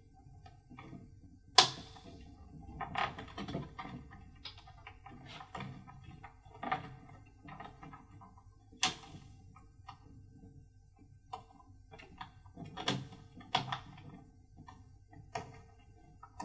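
Hands handling the sensor cables and pressing the rubber cable stopper back into the plastic housing of a WMR300 solar transmitter: scattered sharp plastic clicks and knocks. The loudest comes about one and a half seconds in, with others near nine, thirteen and fifteen seconds.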